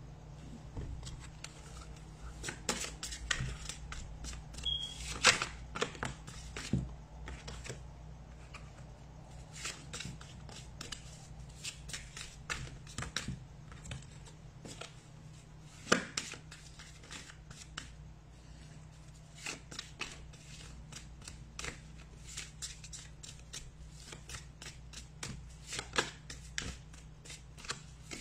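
Tarot cards handled on a tabletop: cards slid, tapped and laid down, making irregular sharp clicks and snaps of card stock, loudest about five seconds in and again at about sixteen seconds.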